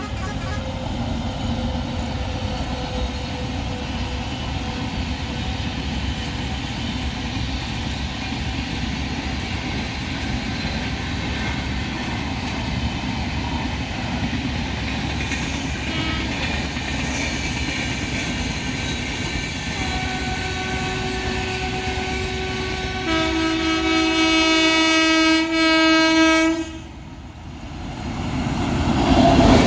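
Steady rumble of a train in motion, then an Indian Railways WAP-7 electric locomotive's horn sounds one long continuous blast. The blast starts about two-thirds of the way in, gets louder and fuller, and cuts off abruptly a few seconds before the end.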